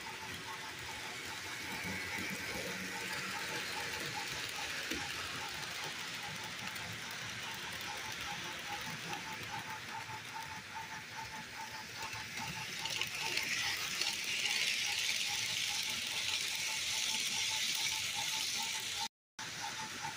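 HO scale Bachmann model train running on plastic-roadbed sectional track: a steady rolling noise with a regular ticking, getting louder about thirteen seconds in as the cars pass close by. The sound cuts out briefly near the end.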